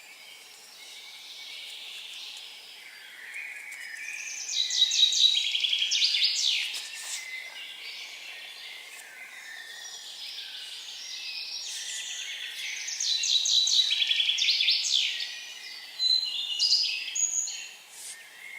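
Songbird singing in forest: two songs about eight seconds apart, each a couple of seconds of fast trilled notes, with shorter chirps near the end over a light steady background hiss.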